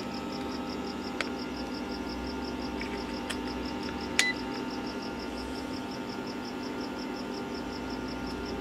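Steady electrical hum from the welder supplying the furnace's heating coils. A faint high tone pulses about five times a second throughout, and a few light clicks come near one, three and four seconds in.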